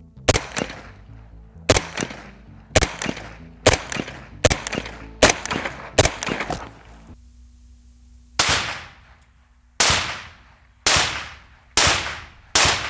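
.308 rifle rounds striking a corrugated metal wall, heard from inside the structure: about a dozen sharp cracks with ringing tails, roughly one a second, with a pause of about a second past the middle.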